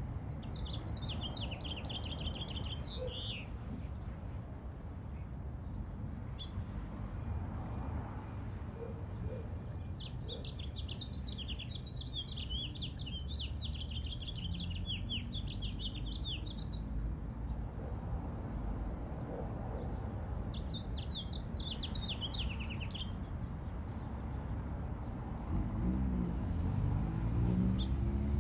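A songbird singing in separate phrases of fast, high, rapidly repeated notes, three long phrases and the start of a fourth at the end, over a steady low rumble.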